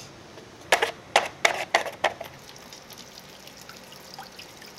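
Water splashing in five short spurts in quick succession, about a second in.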